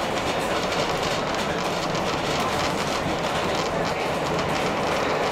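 Heritage narrow-gauge train running along the track: a steady rolling rumble with faint clicks of the wheels on the rails.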